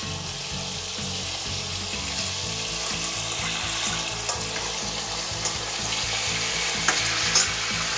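Tuna pieces frying in oil and marinade in a stainless steel pan, with a steady sizzle and a few light clinks of a spoon against the pan in the second half.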